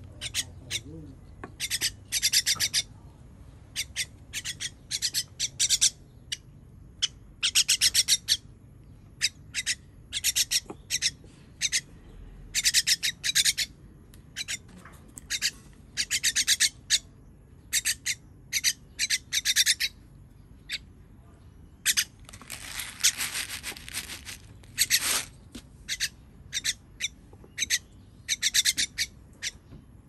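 Common myna giving harsh, rasping calls in quick runs, begging with its beak wide open as it is hand-fed. A longer run of calls comes about two-thirds of the way through.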